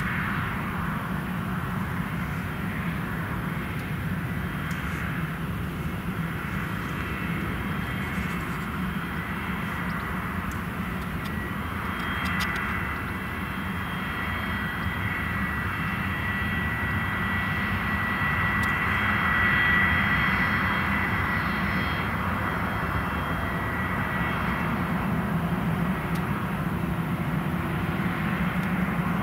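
Pilatus PC-24's twin Williams FJ44 turbofan engines running at taxi power: a steady rushing jet noise with a high whine. The whine swells near the middle as the jet taxis closer.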